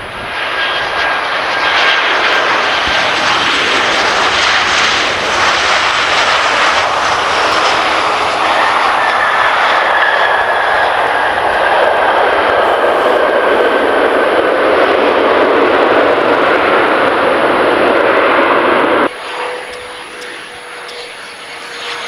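Boeing 737 airliner's jet engines: a loud, steady rush with a faint high whine as it lands and rolls out. This cuts off abruptly near the end, leaving the quieter, steady whine of a small business jet, an Embraer Phenom 300, on approach.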